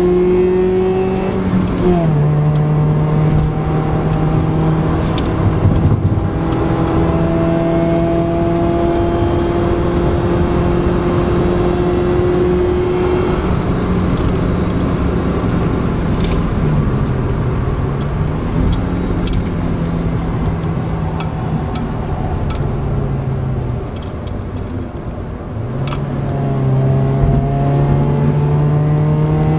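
Inside a Suzuki Forenza under way: the engine's hum climbs slowly in pitch and drops off a few times, about two seconds in and again near the end, over steady road rumble with scattered small clicks.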